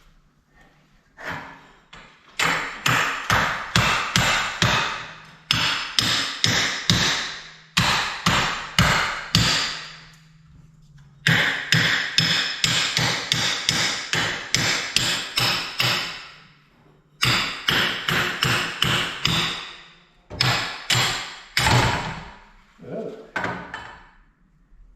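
A hammer striking metal over and over in seven runs of quick blows, about three or four a second, each blow ringing briefly, with short pauses between the runs.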